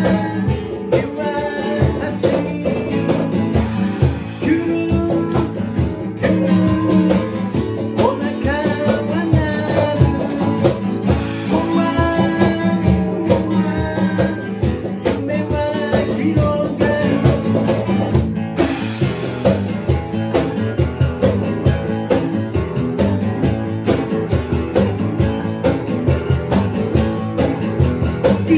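A song played on two guitars with a cajón keeping a steady beat, and a voice singing over it.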